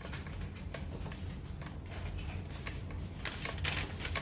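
Faint handling sounds of accessory packaging: light rustling and small scattered clicks over a steady low hum.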